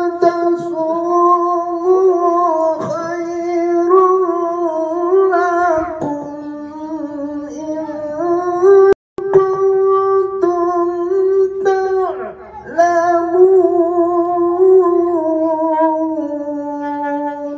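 A man's voice chanting Quran recitation (ngaji) in long, melodic held notes with ornamented wavering pitch, amplified through a handheld microphone. The sound drops out for a split second about nine seconds in.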